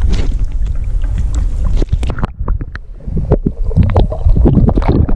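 Wind buffeting the microphone with a constant low rumble. From about halfway in, a busy run of short knocks and handling clatter is layered over it.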